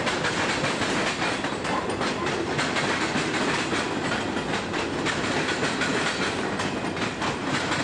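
Covered grain hopper cars of a freight train rolling past close by, their steel wheels clattering over the rails in a steady, dense run of clicks.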